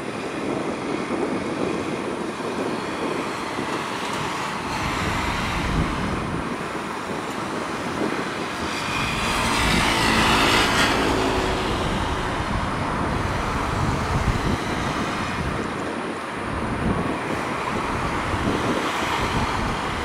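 Steady airport apron noise: aircraft and ground vehicles running at a distance, with a hissing rush that swells for about two seconds halfway through.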